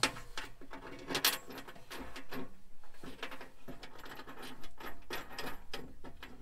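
Bolts with lock washers and flat washers being handled and threaded in by hand, small metal parts clinking and scraping in an irregular run of light clicks and scratches.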